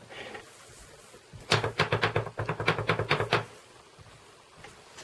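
Quick series of about ten light taps over two seconds: a clear photopolymer stamp on an acrylic block being tapped repeatedly onto an ink pad to ink it.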